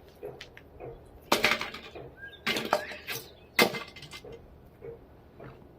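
Metal parts clanking and scraping as they are handled: four sharp knocks with a short ring, in the middle of the stretch, among lighter clicks and rattles.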